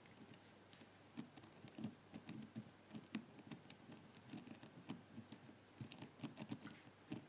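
Faint, irregular clicking of a four-wheel combination padlock's number wheels being turned notch by notch, mixed with small rattles as the shackle is worked to feel for play in the gates.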